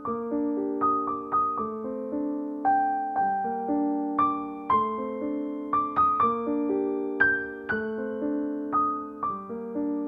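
Background piano music: single notes struck about twice a second, each ringing and fading.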